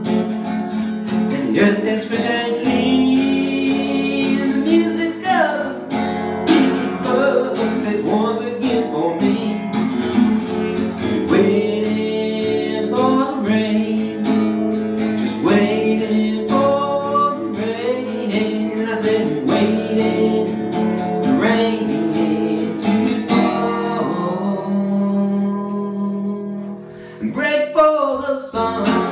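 Song with strummed and picked acoustic guitar and a voice singing over it; the music drops away briefly near the end, then the guitar comes back in.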